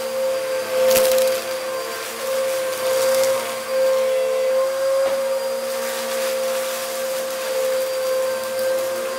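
Bissell vacuum cleaner running over a rug, a steady motor whine with a rush of airflow. Sharp crackles of gritty debris being sucked up come about a second in and again near the middle.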